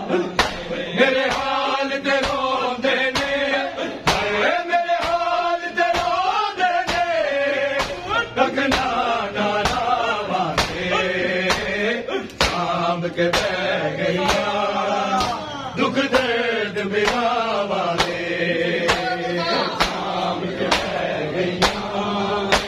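Men chanting a Shia mourning lament (noha) together while bare-chested mourners beat their chests in unison. The beating makes a steady, regular beat of sharp slaps under the singing.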